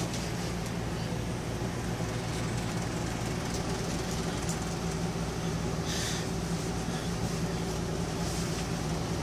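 Steady low mechanical hum of room air conditioning, with a brief rustle of clothing about six seconds in.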